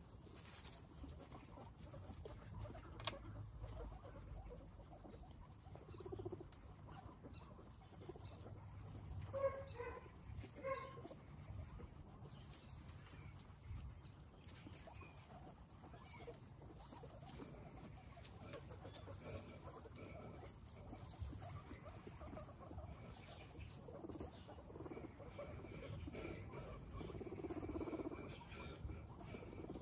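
A group of guinea pigs chewing and crunching carrot pieces and grass, with many small clicks and rustles in the straw. A few short squeaky notes come about ten seconds in.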